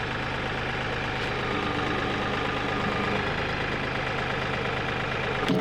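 An engine running steadily, with a short knock near the end.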